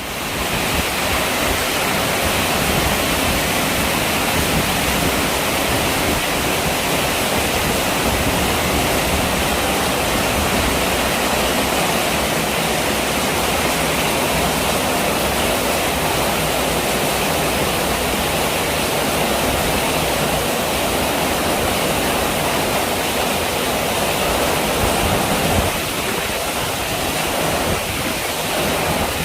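Heavy rain pouring down steadily, a dense even rush of water that swells in right at the start and eases a little near the end.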